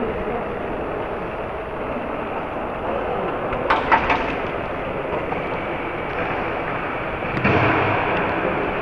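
Steady running noise of a moving train heard from inside the carriage, with a quick cluster of sharp knocks about four seconds in and a louder rush starting about seven and a half seconds in.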